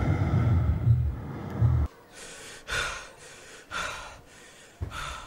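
A person breathing hard in gasps, four breaths in about three seconds. Before them, a low pulsing sound cuts off suddenly about two seconds in.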